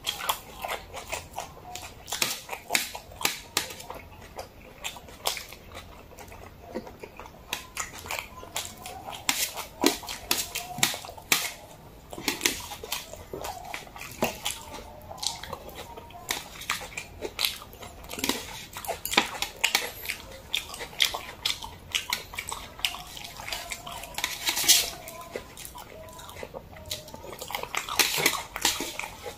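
Close-miked eating sounds of jajangmyeon, noodles in black bean sauce: wet chewing and lip smacking in an irregular run of sharp smacks. Chopsticks clicking against the metal tray.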